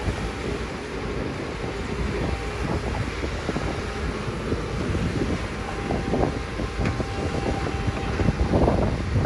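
Komatsu PC200 hydraulic excavator's diesel engine running as it digs in water, with water splashing and churning around the bucket. Wind buffets the microphone.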